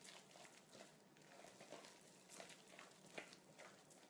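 Near silence, with a few faint soft scrapes and taps of a wooden spoon working a soft mashed kumara-and-potato fishcake mixture in a glass bowl.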